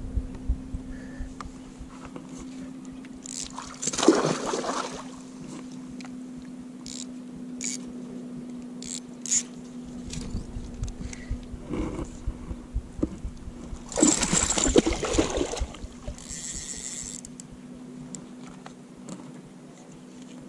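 Water splashing and sloshing around a kayak while a hooked pike is reeled in, with louder splashes about four seconds in and again around fourteen to sixteen seconds in, over a faint steady hum.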